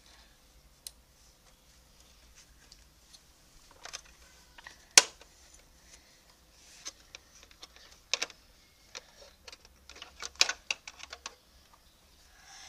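Hard plastic parts of a Bruder toy crane truck clicking and knocking as they are handled: its outriggers being set and its counterweight block lifted off. Scattered clicks, one sharp knock about five seconds in, and a quick run of clicks a few seconds later.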